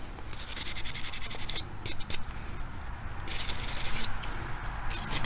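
Wire-bristle brush scrubbing a small steel rifle part, a rapid back-and-forth scratching that comes in several short spells. The part is being scrubbed clean of thick oil and powder residue.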